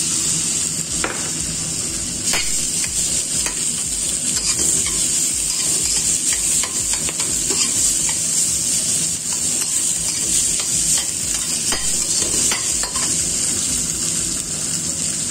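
Rice, shrimp and diced vegetables sizzling in a hot wok as a metal spatula stirs and breaks up the just-added rice. The spatula scrapes and clicks against the pan now and then over a steady frying hiss.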